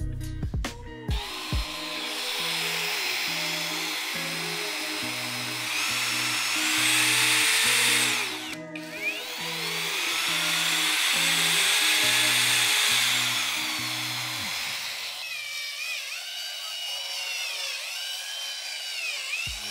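Cordless paddle mixer's electric motor and gearbox whining as its speed is run up and held. It stops briefly about halfway, spins up again and winds down, then runs on with a wavering pitch near the end. Background music plays under it.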